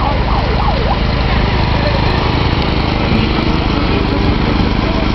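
Ford 4630 tractor's three-cylinder diesel engine running steadily close by, with an even low throb.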